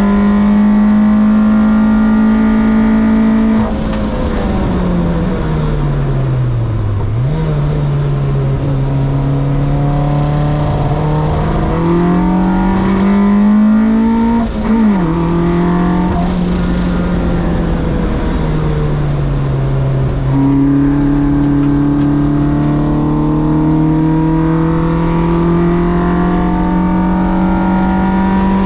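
Car engine running hard on track, its note holding and slowly climbing, then dropping sharply about four seconds in and winding down as the car slows, picking up again, with a brief blip about halfway and a step up in pitch about two-thirds through before climbing steadily again.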